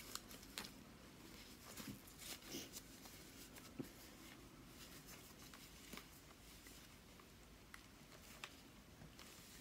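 Near silence with faint, scattered light clicks and soft rustles of hands handling a ball-jointed doll and its wrapping.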